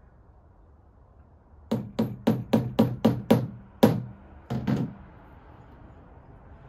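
Hammer tapping repeatedly to punch a small starter dent in a spigot handle for a drill bit: about eight quick strikes, then two more after a short pause, each with a brief low ring.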